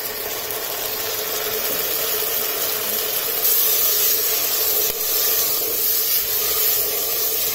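Chopped tomatoes sizzling in hot oil and ghee in a steel pressure cooker, stirred with a silicone spatula: a steady frying hiss that grows a little louder about halfway through, over a faint steady hum.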